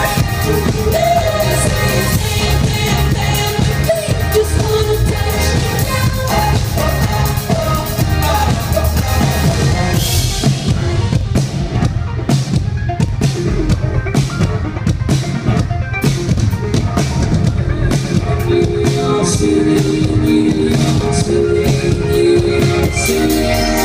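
Live indie-pop band playing loud through the venue PA: drum kit beat and bass under lead singing for the first ten seconds or so, then a sparser drum-led section, with a repeating keyboard line coming in over the last few seconds.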